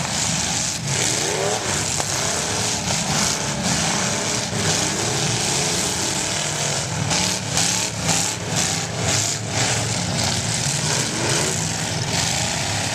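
Several demolition derby cars with engines running and revving up and down as they ram each other. A cluster of sharp knocks and crashes comes about seven to ten seconds in.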